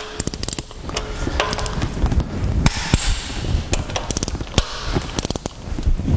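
Ratcheting torque wrench tightening cylinder head bolts: short runs of rapid ratchet clicking on the return strokes, with sharp single clicks as the wrench reaches its set torque of 55 lb ft.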